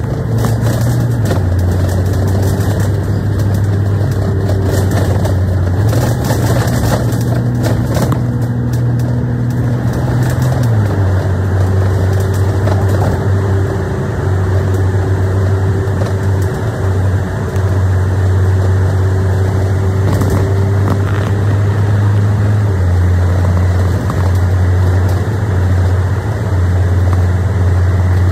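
Double-decker bus running on the road, heard from inside the cabin: a steady engine and road noise with a strong low hum that steps up and down in pitch a few times.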